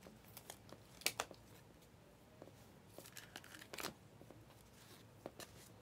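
Faint handling of a stack of glossy trading cards: soft rustling with a few short card snaps as the cards are flipped one by one from the back of the stack to the front.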